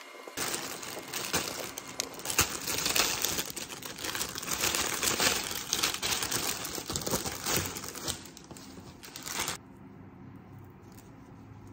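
Thin plastic produce bag crinkling as a bunch of pumpkin leaves is handled and pulled out of it. The crinkling is dense and uneven, and it cuts off suddenly near the end.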